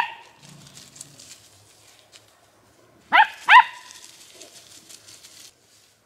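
Young dog's high-pitched barks: one sharp bark right at the start, then two quick barks about three seconds in, with faint rustling of paws in dry leaf litter between them.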